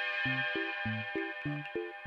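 Electronic background music: a held synthesizer chord with a run of short low notes stepping up and down, about three a second.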